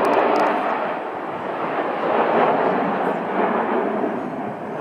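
Jet noise from a formation of BAE Hawk T1 jets flying past: a steady rushing rumble that swells and eases a little.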